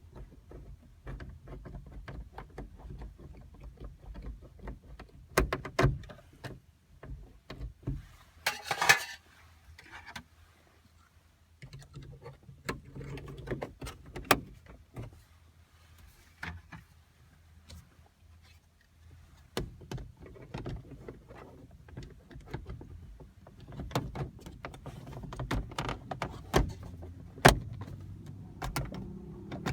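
Scattered clicks and knocks of plastic interior trim being handled and fitted inside a car, with a short rustle about nine seconds in.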